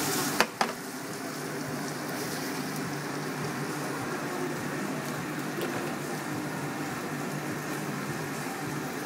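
Carrots and root vegetables sizzling steadily in a stainless steel sauté pan, their cooking water boiled away, with two sharp knocks of the pan about half a second in.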